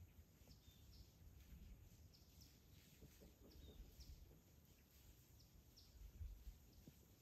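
Near silence in woodland, with a bird chirping faintly: short high chirps every half second to a second, over a low rumble.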